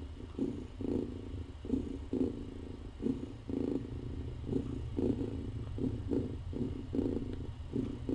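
Mother cat purring while her kittens nurse: a steady low purr that pulses in an even rhythm of about two beats a second.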